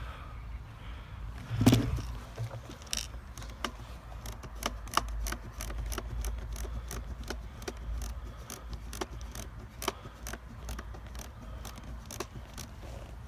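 A louder thump about two seconds in, then a long run of sharp, irregular clicks and snaps, roughly three a second.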